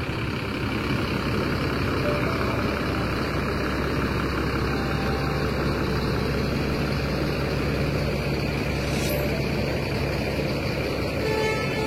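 Large diesel tour-bus engines running steadily, a continuous low engine noise.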